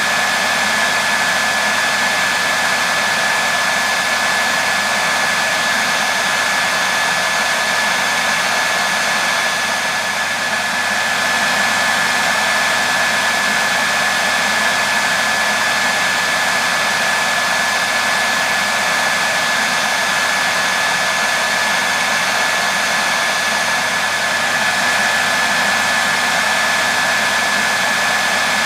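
Hair dryer running steadily: a constant rush of airflow with a steady high whine from its motor and fan, dipping slightly about a third of the way in.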